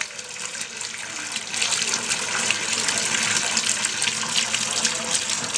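Water running from an open outdoor tap into a tiled wash trough, a steady splashing hiss that gets louder about a second and a half in.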